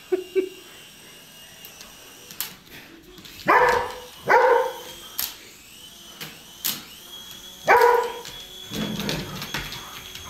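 Poodle barking at a small RC toy helicopter: a short bark at the start, two loud barks close together about three and a half seconds in, and another near eight seconds. Under the barks is a faint, steady high whine from the toy helicopter's motor.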